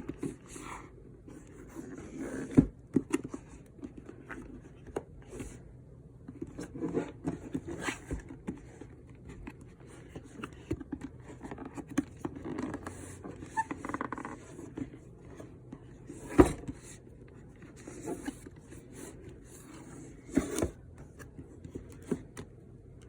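Cardboard box being handled and worked open one-handed: irregular scraping and rubbing of cardboard with scattered sharp knocks, the loudest about sixteen seconds in.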